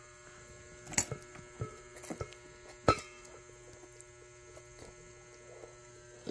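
A few sharp clicks of plastic chopsticks against a glass bowl of noodles, the loudest about a second in and near three seconds in, over a steady low electrical hum.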